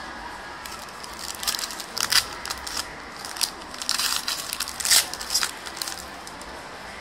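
Foil wrapper of a pack of basketball trading cards crinkling and crackling in irregular bursts as it is torn open and the cards are pulled out.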